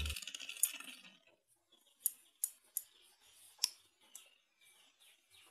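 Steel pliers with welded-on nail tips being opened and closed in the hand, their metal parts clicking: about four separate sharp clicks over a couple of seconds.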